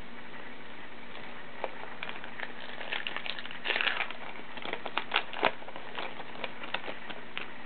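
Baseball card pack being handled: irregular crinkles, rustles and small clicks of a foil pack wrapper and cards, busiest in the middle, over a faint steady hum.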